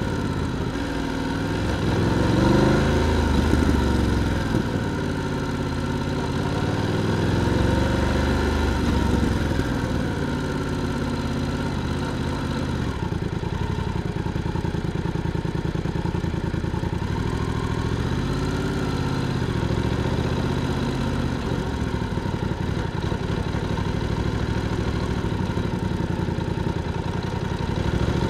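BMW F900R's parallel-twin engine and exhaust at low speed. It rises in revs a few times and holds a steady low-rev beat in the stretches between.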